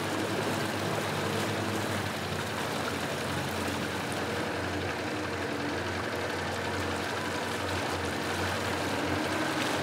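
Twin Yamaha 115 hp four-stroke outboard motors running steadily under way, with water rushing and hissing past the hull.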